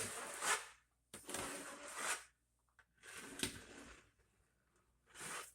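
Floor adhesive being spread with a hand spreader, scraping across the subfloor in four long strokes of about a second each, with short pauses between them.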